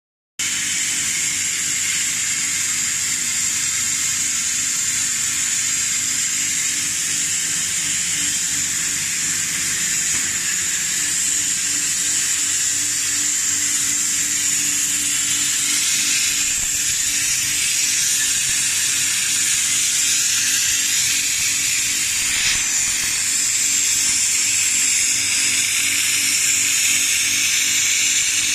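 Chocolate coating pan machine running: a steady, high hiss of air from its blower and spray nozzle over a low motor hum.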